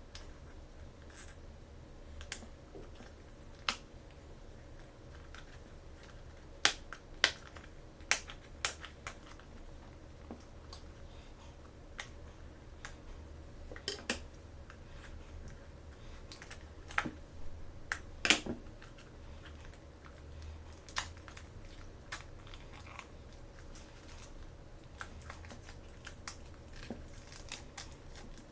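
Small plastic toy pieces and packaging handled by hand: scattered sharp clicks and taps, bunched in a few quick runs, over a faint steady hum.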